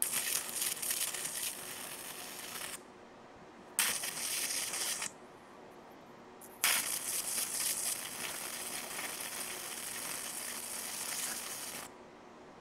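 High-voltage arcs from a ZVS-driven flyback transformer crackling and hissing across a CD-R, burning branching tracks through the disc's metal film. The arc fires in three bursts, a short gap after the first and a longer one before the last and longest, then cuts off.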